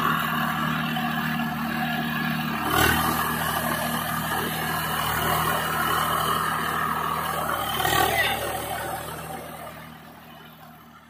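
Swaraj 744 FE tractor's three-cylinder diesel engine running steadily under load while pulling a rotavator through flooded paddy mud, with a louder clatter twice. The sound fades away over the last couple of seconds.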